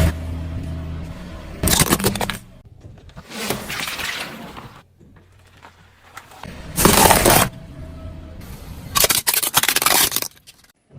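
A car's tyres crushing brittle objects: about four bursts of crunching, cracking breakage, with the car's engine running low underneath.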